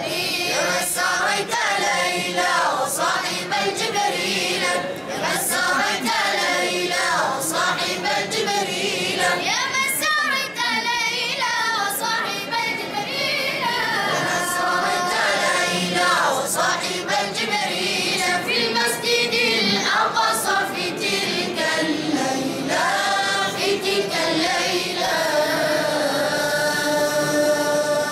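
Devotional Arabic qaseedah singing, with voices rising and falling in long, ornamented, wavering phrases. It settles into a long held note near the end.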